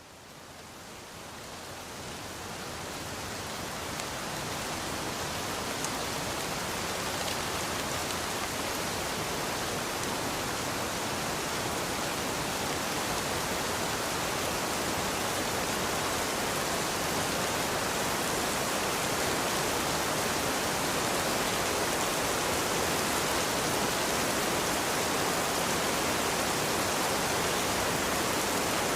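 Rain falling as a steady, even hiss, fading in over the first few seconds and then holding level.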